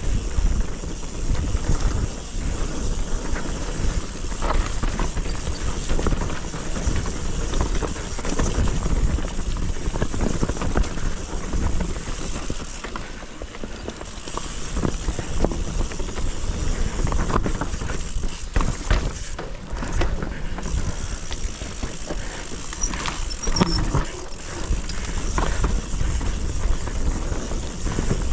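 Mountain bike descending a steep trail: a continuous low rumble of tyres over dirt and rock, with frequent knocks and clatters from the bike.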